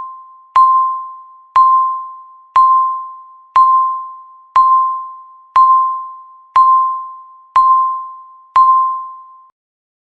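Countdown timer beeping once a second: a single clear chime-like tone struck and fading away before the next, nine times. The beeps stop near the end.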